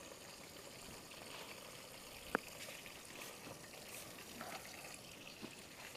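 Potato chips deep-frying in a pot of hot oil: a faint, steady sizzle, with one sharp click a little over two seconds in.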